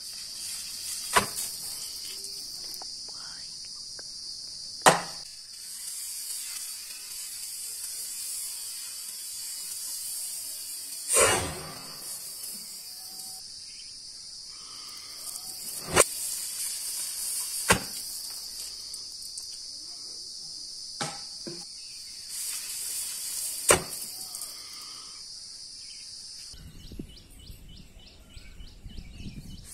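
A steady, high insect chorus of the cricket kind, broken by several sharp clicks or knocks and one longer, louder burst about eleven seconds in. The insect sound stops abruptly near the end, leaving a low rumble like wind on the microphone.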